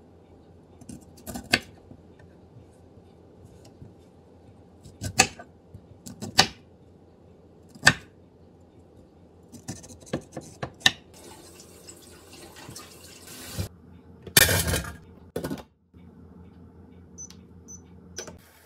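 Chef's knife cutting broccoli florets on a wooden cutting board: single sharp chops a second or two apart, a quicker run of cuts about halfway through, and a louder clatter lasting about a second. Near the end come a few short high beeps from an induction hob's touch controls.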